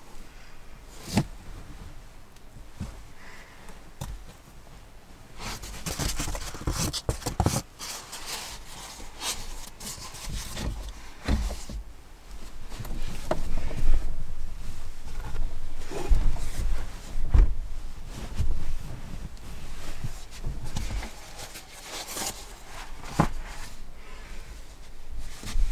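Bedding being handled in a small wooden cabin: a blanket and a folding foam sleeping mat rubbing and scraping, with scattered knocks and bumps against wood.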